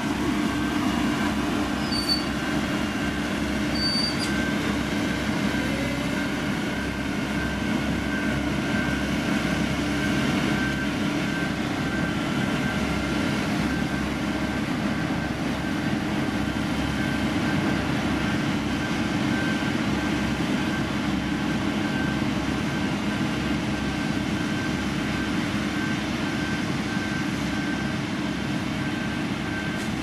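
Diesel engine of a heavy road-construction machine running steadily at working speed, a constant low rumble and hum with no pauses.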